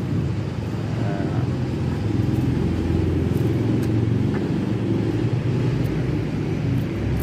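A motor vehicle's engine running steadily as a low rumble, with a few faint clicks.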